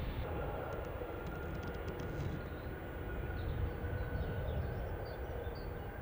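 Airbus A321neo's Pratt & Whitney PW1100G geared turbofans at take-off thrust: a broad, steady rumble with a faint whine, slowly fading as the jet rolls away down the runway and rotates.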